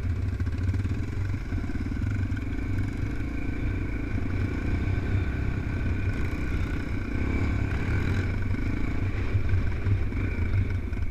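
Dirt bike engine running steadily while riding across a grass field, heard up close from the bike itself, its pitch staying fairly even.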